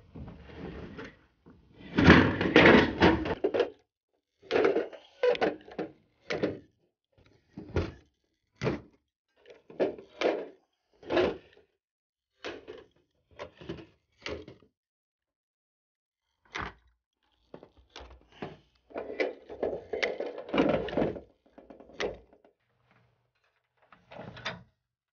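Irregular knocks, clanks and rattles of metal gutter and drip-edge sections being handled and fastened on a corrugated metal roof, in short bursts with silent gaps. The longest, loudest stretches come about two seconds in and again near the end.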